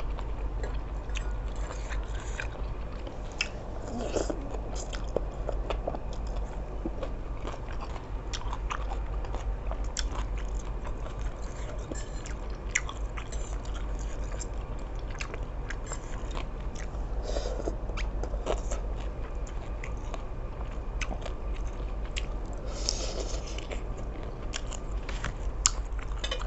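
Close-up eating sounds: a person chewing and biting seafood suki, with many small irregular mouth clicks and smacks over a steady low hum.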